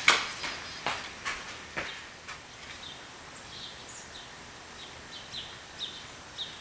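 Running footsteps on pavement, about two a second, growing fainter over the first two seconds as the runner moves away. After that a small bird chirps in short, high notes.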